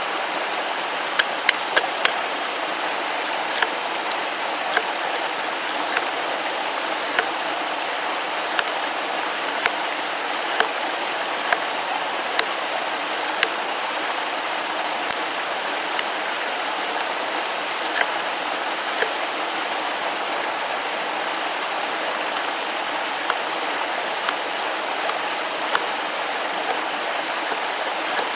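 TOPS Tom Brown Tracker knife chopping into a wooden stake to sharpen its point: short, sharp knocks at irregular intervals, at times about one a second, over the steady rushing of a stream.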